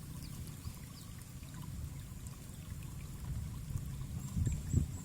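Steady low rush of flowing, trickling water, swelling slightly near the end.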